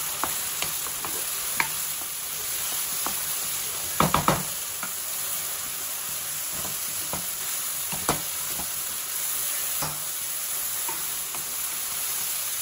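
Chopped onions, tomatoes and green chilies with ginger garlic paste sizzling in hot oil in a nonstick kadai, stirred and scraped with a wooden spatula and pressed with a metal masher. Sharp knocks of the utensils on the pan: three in quick succession about four seconds in, then single ones near eight and ten seconds.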